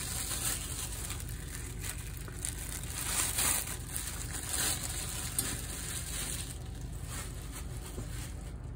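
Plastic rustling and crinkling in short bouts as pieces of cooked beef are handled and bagged, over a steady hiss and low hum.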